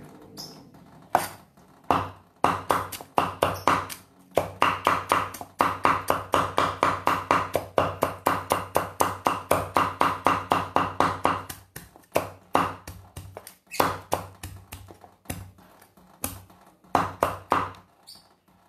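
Steel cleaver chopping cooked chicken on a round chopping board: a fast, even run of about five strikes a second, each with a short metallic ring, then slower single chops near the end.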